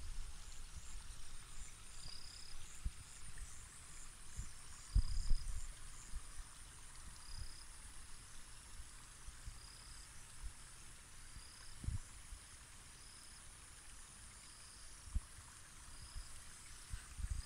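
Outdoor rural ambience: wind buffeting the microphone in irregular low gusts and thumps, strongest about five seconds in. Behind it runs a faint steady high-pitched trill, and a short high chirp repeats about once a second.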